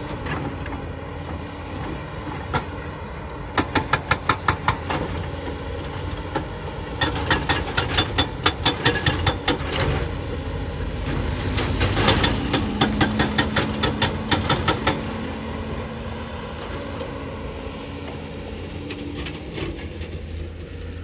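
JCB JS220 tracked excavator's diesel engine running steadily, with several bursts of rapid rhythmic clanking, about seven knocks a second, lasting a few seconds each.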